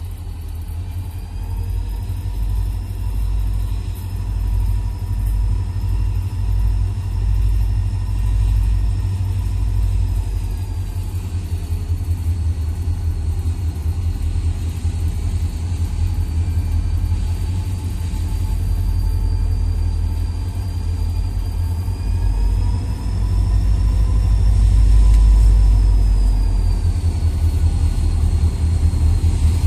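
Diesel freight locomotives approaching at low speed, their engines giving a deep steady rumble that grows louder as they near. A thin high whine rides over it, rising and falling in pitch twice.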